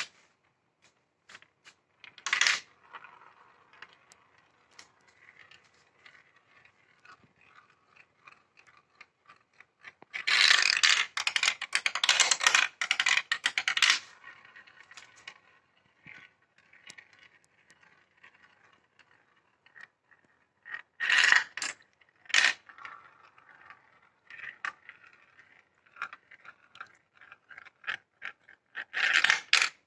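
Marbles rolling along a plastic marble-run track, a faint steady rolling broken by sharp clicks. A dense clattering run about ten seconds in lasts some four seconds, with shorter bursts of clatter about twenty-one and twenty-nine seconds in.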